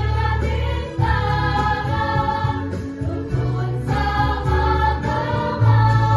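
Junior high school choir singing sustained chords in several parts, the harmony shifting every second or few.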